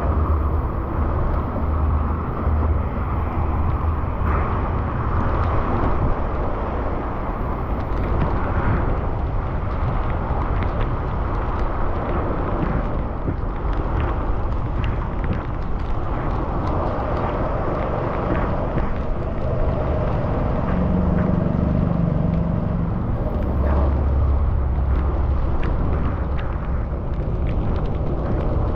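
Steady wind and road noise from a bicycle riding through heavy rain on wet streets, with raindrops ticking and motor traffic passing.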